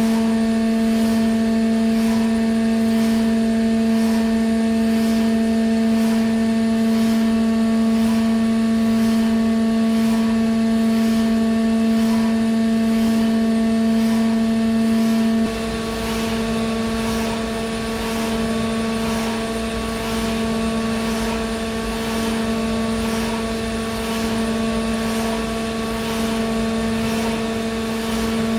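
High-speed pantograph test rig running, a steady machine hum with a fixed pitched whine and a faint regular pulsing. About halfway through, the hum drops a little and a low rumble joins it.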